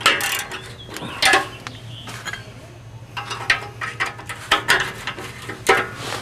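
Socket ratchet and box-end wrench clinking and clicking against a rusty exhaust flange bolt as they are fitted onto it, in separate groups of short metal clicks and knocks, over a steady low hum.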